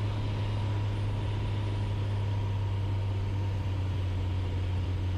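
Light piston airplane's engine and propeller droning steadily in the cockpit during the final approach to landing.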